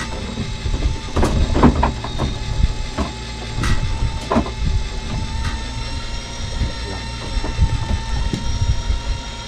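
A boat's engine running steadily with a low rumble and a thin whine, with scattered clicks and knocks.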